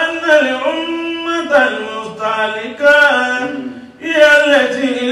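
A man's voice chanting melodically into a microphone, holding long level notes and gliding between pitches, with a short pause about four seconds in.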